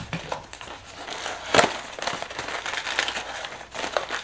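Small cardboard blind box handled and its top flap pried open by fingers: scraping and crackling of thin card, with a run of small clicks and one sharper crack about one and a half seconds in.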